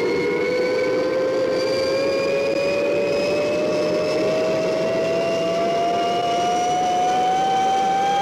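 Spaceship engine sound effect from a 1960s TV series: a rushing engine noise under a whine that climbs slowly and steadily in pitch as the rescue ship accelerates up its launch ramp at full power.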